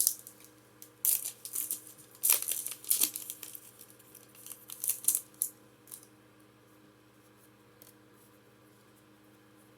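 Foil Pokémon booster pack being torn open and its wrapper crinkled: a run of short papery tears and rustles that stops about six seconds in.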